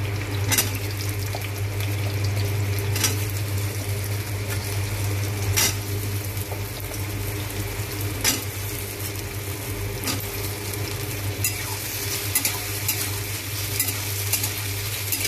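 Potato cubes and onion frying in oil in a steel kadai with a steady sizzle, while a spatula stirs and scrapes them, clicking against the pan every few seconds and more often near the end.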